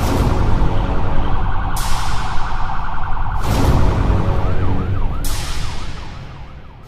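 A siren warbling rapidly, then going into slower rising-and-falling wails, over a low rumble. A loud blast sounds about every second and a half, four in all, and everything fades near the end.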